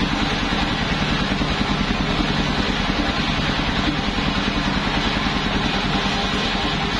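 Engine of a homemade mobile circular sawmill running steadily with an even pulse, with no wood being cut.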